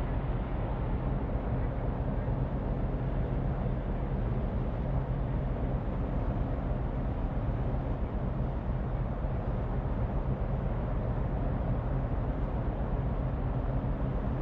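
A large ferry's engines droning steadily, a low hum over the rush of water churned up by its propellers as it manoeuvres alongside the quay to berth.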